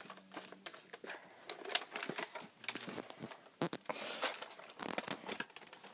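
Hard plastic clicks and rattles of a Nerf blaster and its scope being handled, as the scope is slid onto the rail on top of the gun. A brief hissing scrape comes about four seconds in.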